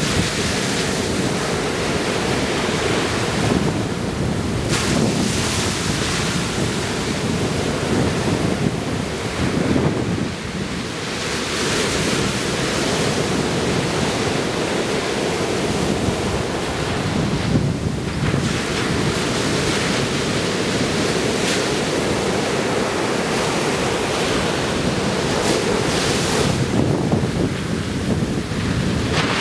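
Ocean surf breaking and washing up the sand, its hiss swelling and fading as each wave comes in, over a heavy low rumble of wind buffeting the microphone.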